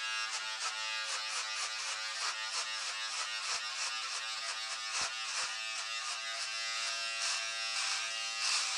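Remington electric shaver running with a steady buzz while it is pushed through a long, thick beard, the cutting giving a rasp about three times a second.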